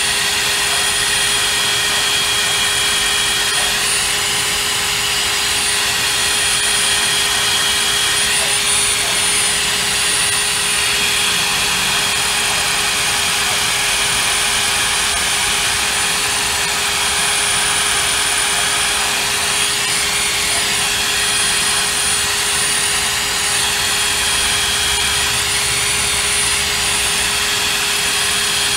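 Cordless brushless drill running continuously under load, turning a tool inside the steel sleeve of a pintle hitch: a steady motor whine whose pitch dips briefly a few times as the load changes.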